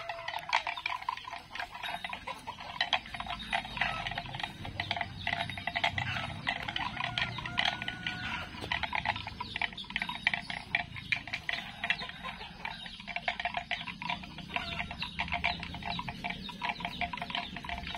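Bali cattle tearing up and chewing cut grass close by: a dense, irregular crunching and clicking with no pauses.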